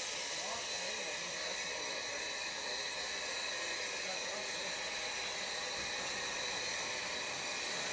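Steady steam hiss from the narrow-gauge steam locomotive Mh.1 as it stands at the platform, with faint voices.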